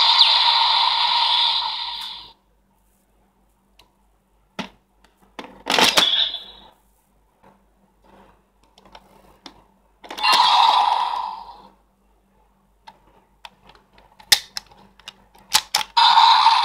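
Electronic sound effects from a DX Kamen Rider Saber toy belt's small speaker. The finisher audio fades out about two seconds in. The plastic book and belt parts click as they are handled, and there are three short electronic sound bursts from the speaker, part of the transformation-release sound.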